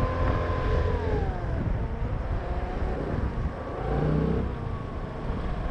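Car engine and road rumble heard from inside the moving car. A steady engine note drops away about a second in, and a lower engine note swells briefly around four seconds in.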